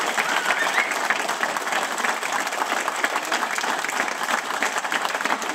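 Group of people applauding: many hands clapping steadily and densely, with a faint voice or two.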